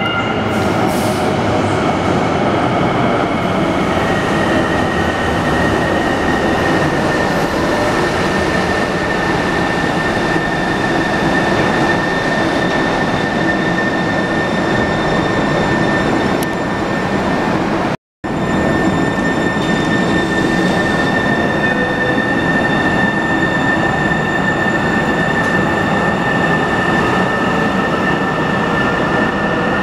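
Sound Transit Link light rail train running along the platform of an underground station: a steady rumble with a steady high-pitched tone over it, echoing in the tunnel. The sound cuts out for a moment about two-thirds of the way through.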